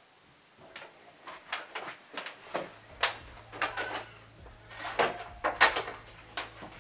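An irregular run of sharp knocks, clicks and rattles, about a dozen over several seconds, loudest in the middle, with a low steady hum coming in a couple of seconds in.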